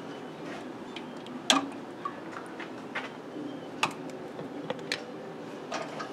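Metal two-piece canning lids on hot jars of pressure-canned venison pinging as they seal: about five sharp clicks at uneven intervals, a few with a brief ring. Each is a lid being pulled down by the vacuum as the jar cools, the sign of a good seal.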